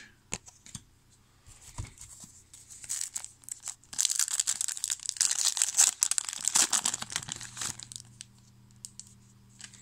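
A 2003 Bowman football card pack's wrapper being torn open and crinkled, with a few light clicks of handling first and then a stretch of dense crackling from about four to seven seconds in.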